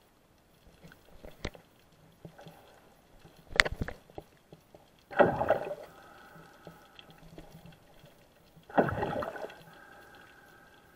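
Underwater sound heard through an action camera's waterproof housing: scattered clicks and a sharp crackle, then two bubbling whooshes of moving water about three and a half seconds apart.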